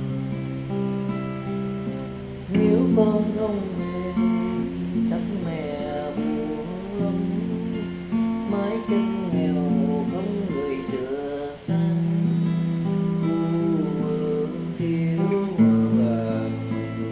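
Steel-string acoustic guitar played slowly, with chords ringing and changing every second or two under a wavering melody line. It gets louder about two and a half seconds in and again near twelve seconds.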